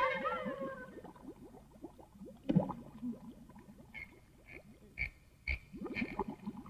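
Quiet cartoon sound effects: a quick run of short gliding squeaks, with a few soft knocks and a brief string of high notes about two-thirds of the way through.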